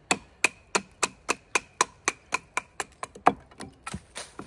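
A wooden baton striking the spine of a Knives by Nuge Bruin scandi knife in CPM 3V steel, driving the blade down through a short, very hard stick to split it. Steady, sharp knocks about three or four a second with a faint metallic ring; the loudest comes about three-quarters through, followed by lighter, quicker taps.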